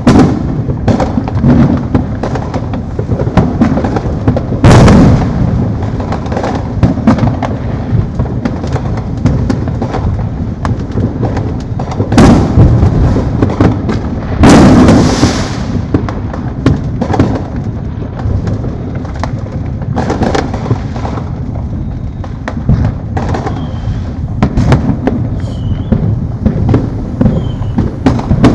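Many fireworks and firecrackers going off without a break, a steady crackle of pops and bangs. The biggest booms come about five, twelve and fifteen seconds in.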